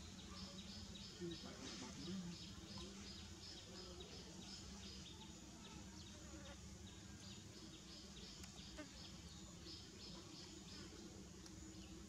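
Faint insect chirping: a regular run of short high-pitched pulses, about four a second, with a short break about eight seconds in.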